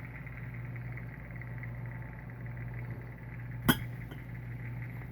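Steady low background hum with one sharp click about three and a half seconds in.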